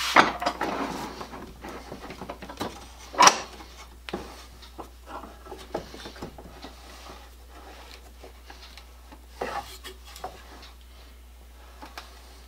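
Wooden boards being shifted and knocked together on a workbench. There is a clatter with rubbing at the start and one sharp knock about three seconds in, then scattered light taps.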